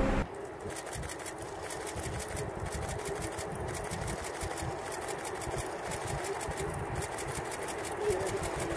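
The Antonov An-225's six Progress D-18T turbofan engines at takeoff power as the jet climbs out, heard as a steady rushing roar with a rapid, even flutter.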